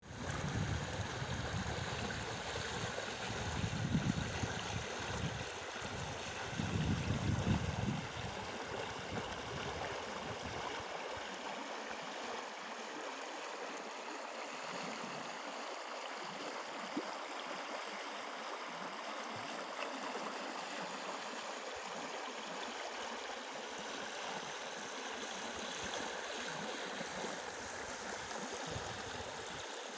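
Small stream flowing steadily, a constant rushing and gurgling of water. A low rumble comes and goes in the first eight seconds.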